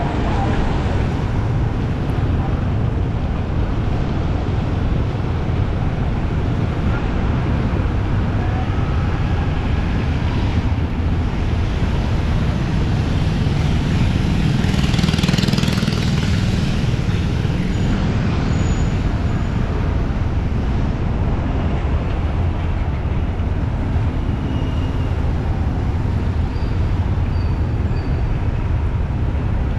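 Steady street traffic noise with a heavy low rumble, one vehicle passing louder about halfway through.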